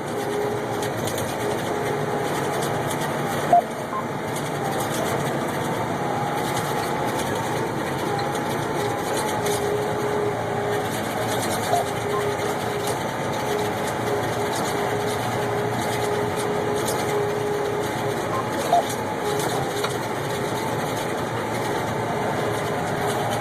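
Case IH 2388 combine running steadily during wheat harvest, a constant drone with two steady tones over a wash of machine noise. Three brief sharp clicks stand out about 3.5, 12 and 19 seconds in.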